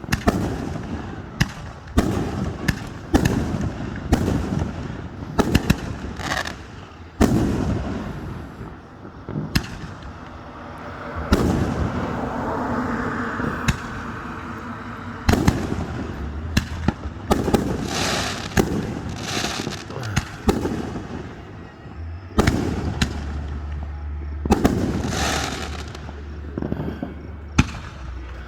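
Fireworks display: aerial shells bursting in an irregular string of sharp bangs, roughly one every second, some coming in quick pairs.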